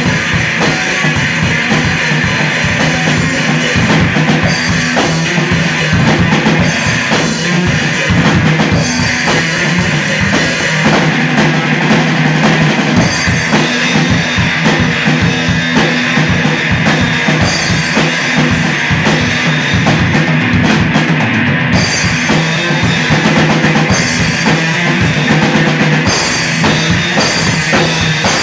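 Live rock band playing loudly: a full drum kit with bass drum, and guitars.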